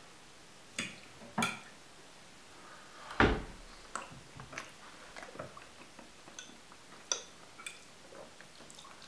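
A fork clicking against a plate twice as potato salad is picked up, a louder knock about three seconds in, then small scattered clicks of the fork and quiet chewing while the salad is tasted.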